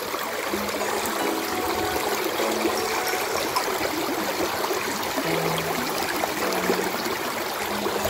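Shallow mountain creek babbling over rocks and gravel: a steady rush of running water.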